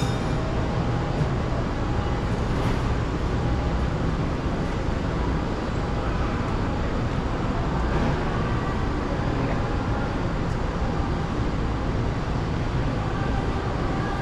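Steady low rumble and hiss of a large airport terminal's ambient noise, with no distinct events.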